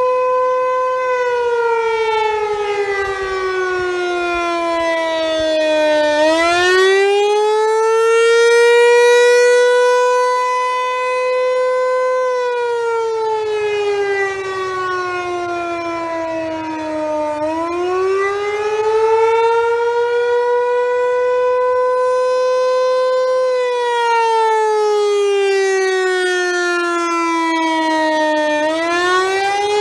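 American Signal T-128 outdoor warning siren sounding the attack signal: a loud wail that glides up in pitch over about five seconds, holds briefly, then falls again, repeating about every eleven seconds.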